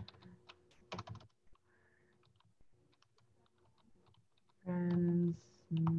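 Computer keyboard being typed on: scattered single key clicks as a word is typed out. Near the end, a voice holds a drawn-out word.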